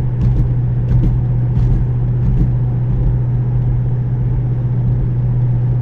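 Car engine and road noise heard from inside the cabin while driving, a steady low drone with no change in revs.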